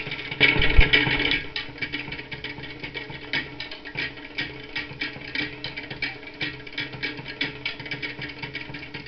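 Music with a quick, steady percussive beat. About a second in there is a brief louder burst with a low thump.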